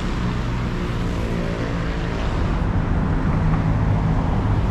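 Road traffic noise, with a vehicle engine running close by as a steady low drone that grows a little louder near the end.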